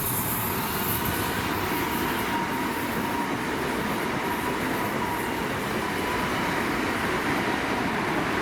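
Electric passenger train running through the station: a steady rumble and rush of wheels on rail with a faint steady whine.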